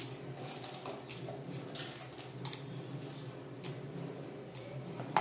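Dry roasted red chillies being picked up by hand and dropped into a stainless-steel mixer-grinder jar: light, irregular rustles and ticks of the pods against metal, with fingers brushing the metal plate.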